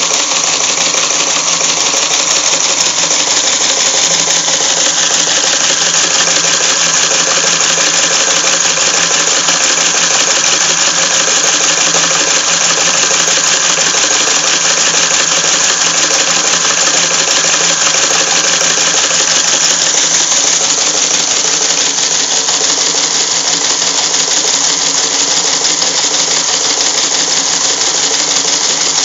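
Teletype Model 14 keyboard typing reperforator running continuously, printing characters and punching paper tape with a fast, steady mechanical clatter.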